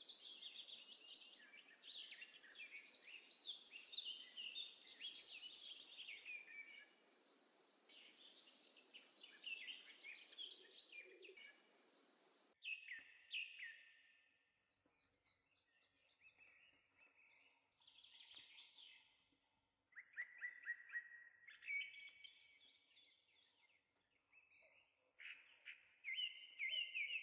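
Faint birdsong: many short chirps and trills from small birds, over a light steady hiss that cuts off abruptly about twelve seconds in.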